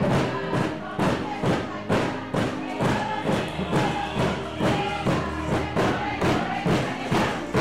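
Music with a steady beat of about two strokes a second.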